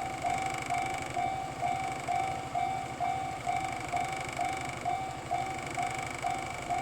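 Japanese railway level crossing warning bell sounding, an even repeating ding about twice a second, over a steady low hum.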